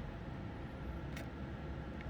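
Steady low background hum, with one light click a little after a second in.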